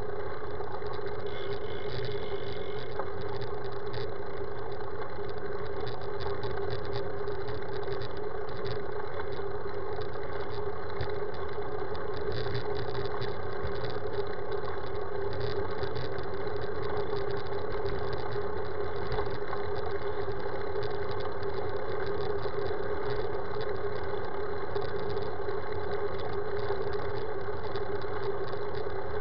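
Steady wind and road rumble picked up by a camera mounted on a moving road bike, with a constant drone and frequent small rattling clicks from the mount on the asphalt.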